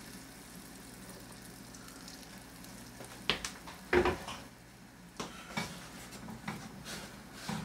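Yorkshire pudding batter sizzling in hot tallow in a metal muffin tin, a steady faint frying hiss. From about three seconds in come a series of sharp knocks and clatter, the loudest a little after three and a half seconds.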